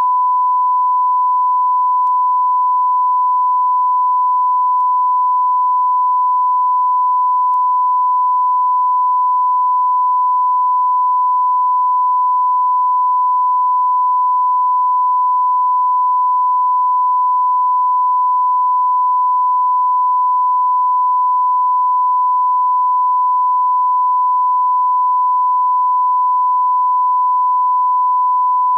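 Steady 1 kHz reference tone, one pure unchanging pitch held at a constant level: the line-up tone laid at the head of a broadcast commercial.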